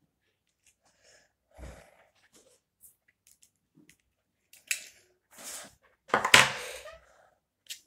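Small clicks and rustles of a smartphone and its SIM tray being handled at close range, with a louder harsh rustle, possibly a breath, about six seconds in.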